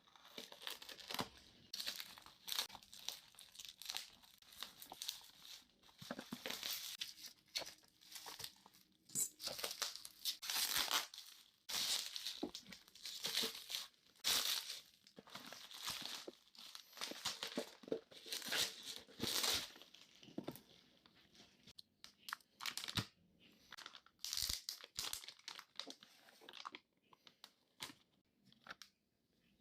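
Packaging being torn open and crinkled by hand, in irregular rustling bursts with short pauses, dying down over the last few seconds.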